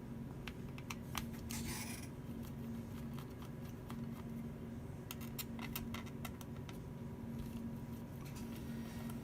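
Small clicks and light metallic taps of hand tools and screws working on a laptop's casing, with a short scraping rustle about two seconds in and a run of quick clicks around the middle, over a steady low hum.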